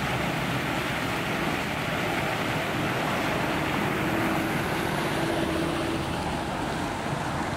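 Steady rushing noise of traffic and wind, with a faint engine hum.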